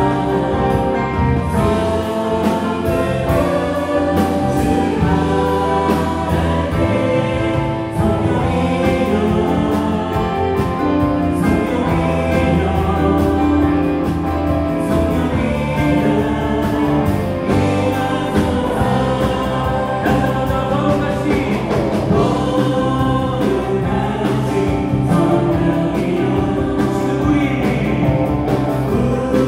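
Live worship band playing a Korean praise song, electric guitar, keyboards, bass guitar and drums over a steady drum beat, with voices singing along.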